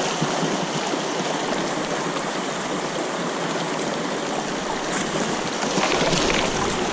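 Fast-flowing, rain-swollen creek water rushing steadily, an even hiss of moving current that swells slightly about six seconds in.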